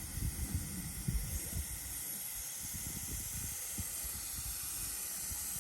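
Steady hiss of air escaping from an off-road tire through a screw-on tire deflator as it is aired down, with a few low thumps in the first second or so.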